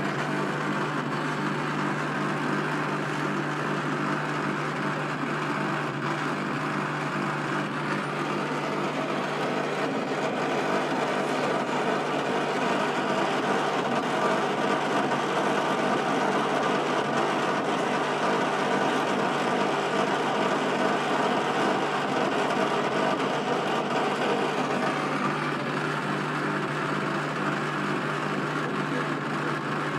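Servis Caress 1300 A washing machine spinning at high speed: a steady hum under a broad rushing noise, a little louder through the middle. The noise comes from badly worn drum bearings.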